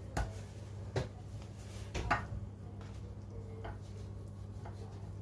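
A metal spoon knocking and scraping against a bowl as soft white cheese is emptied onto a plate: a few light knocks roughly a second apart, over a steady low hum.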